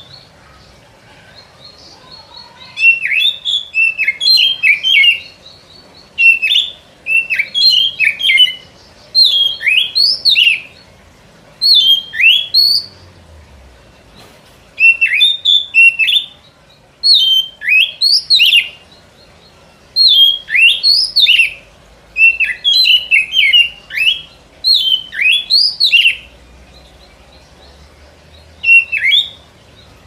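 Oriental magpie-robin (kacer) song from a bird-lure (pikat) recording. About ten short phrases of quick, sweeping high notes follow one another, each a second or two long, with pauses of a second or two between them.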